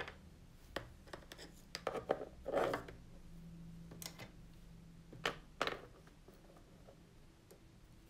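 Paintbrushes being set down one by one on a hard surface: a scatter of light clicks and knocks with brief handling rustle, busiest around two to three seconds in and again around five seconds in.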